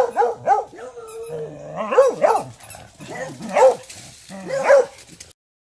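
A hound barking: a quick run of barks, a drawn-out bay, then single barks about a second apart. The sound cuts off suddenly near the end.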